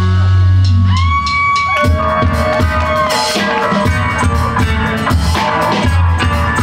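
Live band playing an instrumental passage on electric guitar, electric bass and drum kit. A low note is held for about the first second, then high notes slide and bend over the drums.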